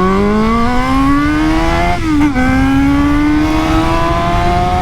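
Yamaha XJ6 motorcycle's 600 cc inline-four engine accelerating hard, its note climbing steadily. About two seconds in it drops with an upshift, then climbs again.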